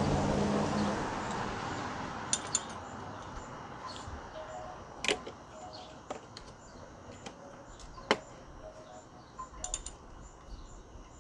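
Hand tools clinking against metal: a few scattered sharp clicks and taps of a socket and ratchet being tried on a small headlight mounting bolt, over a background hiss that fades in the first few seconds.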